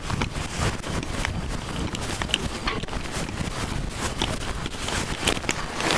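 Sailboat headsail cloth flapping and rubbing close over the microphone during a tack, with irregular knocks and scrapes against a steady rumble of wind on the mic.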